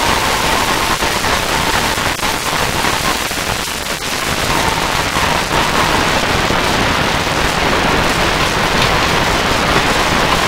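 Harsh-noise music track: a loud, unbroken wall of hiss-like noise with many small crackles and a steady tone running through it.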